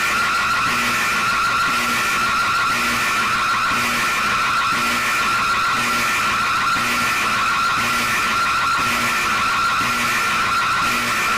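Emergency alert alarm tone: a loud, high, rapidly warbling tone held without a break, with a faint low blip about once a second under it.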